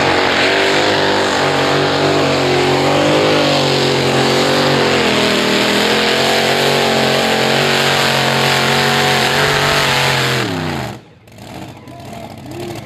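Modified-class pulling tractor's engine running flat out under load during a pull, its pitch wavering up and down. About ten and a half seconds in the revs fall quickly and the engine cuts off: the run is over and the tractor is stopped.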